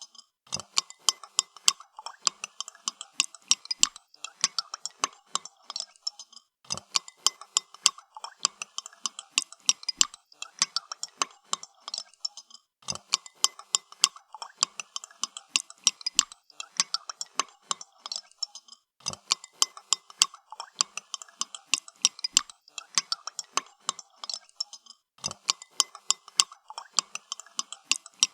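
Spoon stirring coffee in a cup, clinking quickly and repeatedly against the sides. The clinking comes in stretches of about six seconds, each broken off by a short pause.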